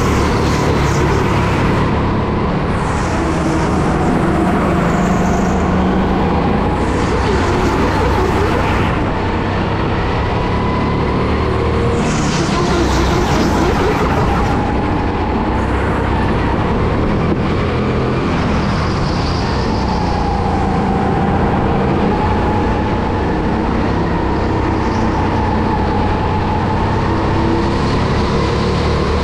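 Go-kart driven at race pace: a motor whine that rises and falls as it speeds up and slows through the corners, over steady wind and tyre noise.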